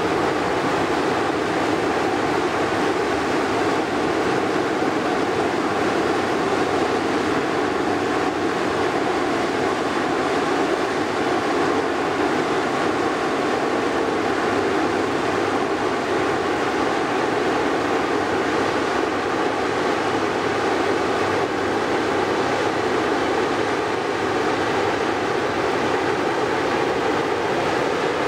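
Diesel engine of a loaded inland container ship running steadily as the ship passes under way. It makes an even, unbroken drone mixed with a rushing noise.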